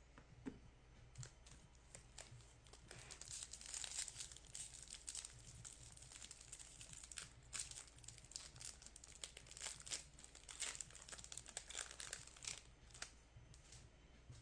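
Plastic-foil wrapper of a baseball trading-card pack crinkling and tearing as it is opened, a rapid, uneven string of faint crackles.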